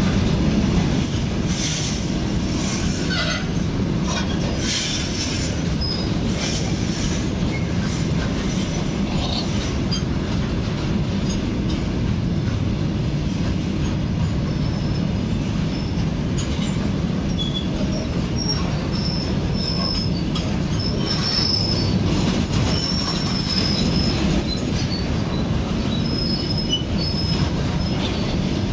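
Loaded freight wagons rolling past: a steady rumble of steel wheels on the rails, with repeated clanks over the rail joints in the first several seconds. Thin, high wheel squeals come and go in the second half.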